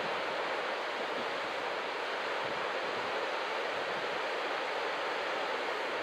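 Ocean surf breaking and washing ashore: a continuous, even hiss with no single wave standing out.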